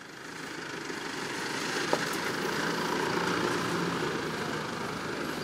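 A motor vehicle's engine running steadily amid outdoor traffic noise, with one sharp click about two seconds in.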